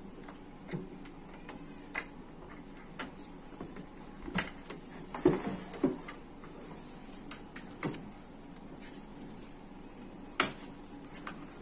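Plastic frame and fabric basket of a Mastela 6-in-1 bassinet being handled and fitted together: scattered clicks, knocks and rustles, with a cluster of the loudest knocks about five seconds in and another sharp knock near the end.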